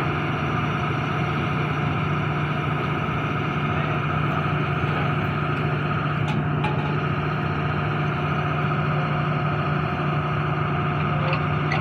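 Truck-mounted borewell drilling rig's heavy engine running steadily, a constant even drone with a strong low hum.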